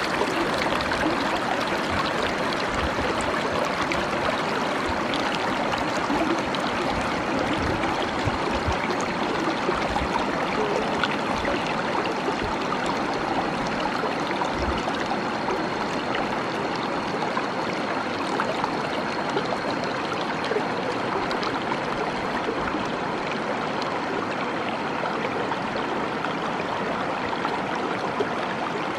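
Shallow river flowing over rocks and pebbles: a steady rush of water.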